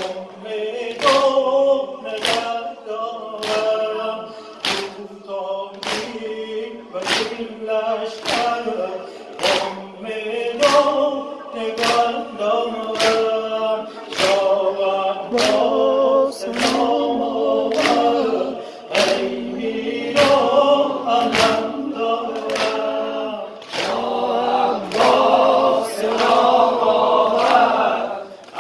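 A congregation of men chanting a Shia mourning lament (noha) together, with a steady beat of open-palm chest-beating (sineh zani) striking about every 0.7 seconds.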